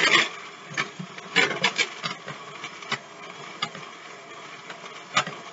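Electric hand mixer running, its beaters shredding cooked chicken breast in a plastic bowl. Irregular clatter and knocks from the beaters striking the bowl, loudest at the start and about a second and a half in.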